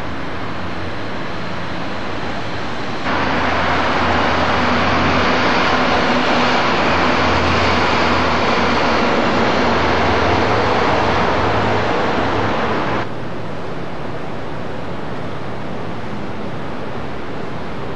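Downtown street ambience: a steady hiss of traffic noise. About three seconds in it turns abruptly louder, with a low engine hum underneath, and about ten seconds later it drops back just as suddenly.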